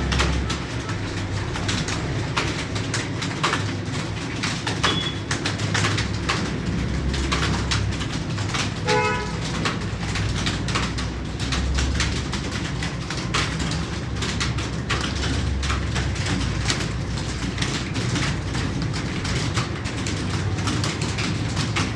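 Computer keyboard being typed on in a timed typing-test run: rapid, irregular key clicks over a steady low hum, with a brief pitched tone about nine seconds in.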